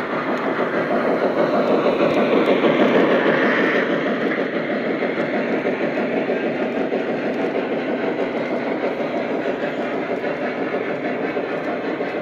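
Lionel O gauge model trains rolling on three-rail track: a Maine Central 2-8-0 steam locomotive passes close, loudest about three seconds in, then passenger cars roll steadily by.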